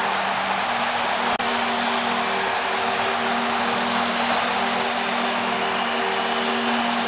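Ice hockey arena crowd cheering loudly and steadily just after a home-team goal, with a low steady tone running beneath the cheering.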